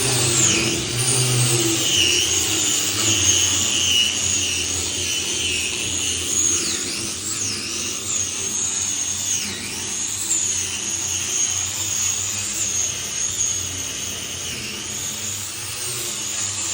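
Handheld electric grinder running at high speed, grinding down aluminum; its high whine dips sharply in pitch several times as it is pressed into the work.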